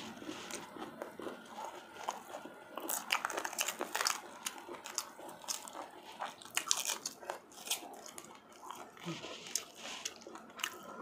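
Crunchy biting and chewing close to the microphone, with sharp crisp crunches in clusters about three to four seconds in and again about six to eight seconds in, as a fresh green chili pepper is bitten and snapped open by hand.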